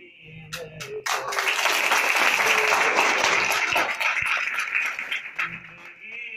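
A small audience applauding: a few scattered claps about half a second in, then a burst of clapping that runs for about four seconds and dies away, over background music.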